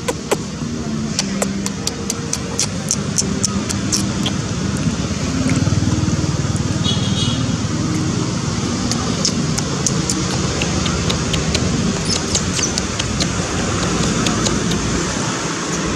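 Outdoor background of a steady low engine hum from road traffic, with faint voices, over a run of sharp clicks in the first few seconds and again in the second half.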